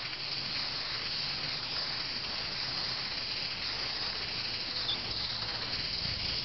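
Hunter MP Rotator sprinkler nozzles running: a steady, even hiss of water spray.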